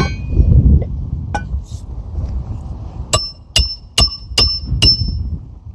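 Hammer striking a roof snake, a metal nailing tool slipped under an asphalt shingle, to drive a roofing nail through into the decking. After two light clinks, five quick ringing blows come about two or three a second in the second half.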